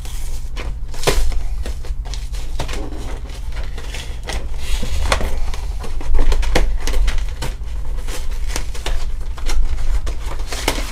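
Plastic packaging crinkling and clacking in irregular clicks as the contents are pulled out of a cardboard collection box, over a steady low hum.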